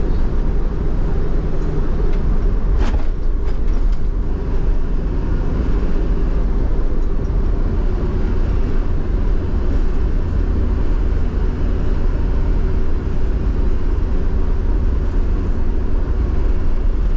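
Steady road noise inside a moving car's cabin: tyre roar and engine hum while cruising on an expressway.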